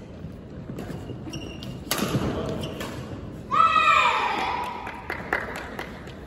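Badminton rally: sharp clicks of rackets striking the shuttlecock and thuds of footwork on the wooden court. About three and a half seconds in comes a loud, drawn-out shout that falls in pitch.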